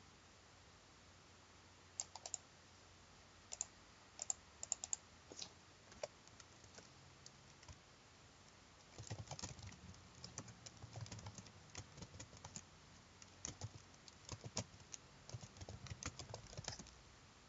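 Typing on a computer keyboard, faint: a few separate clicks in the first seconds, then a quick run of keystrokes from about nine seconds in.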